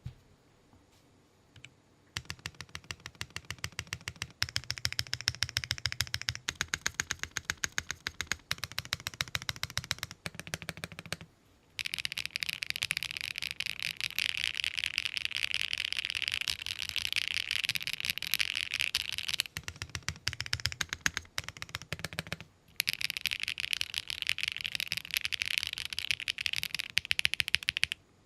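Mechanical keyboard with light linear Akko Mirror switches, in a Tofu 2.0 aluminium-plate, top-mount board without foams, being typed on. A few single keystrokes come first, then steady typing from about two seconds in. After a short break near the middle comes a very fast, dense run of key clacks, and after another short break the typing goes on.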